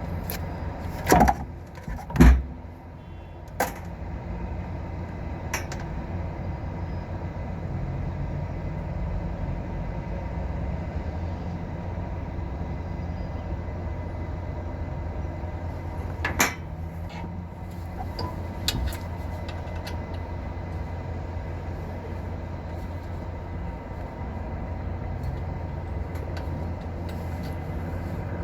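A steady low machine hum with about six sharp knocks and clicks scattered through it, the two loudest about a second and two seconds in.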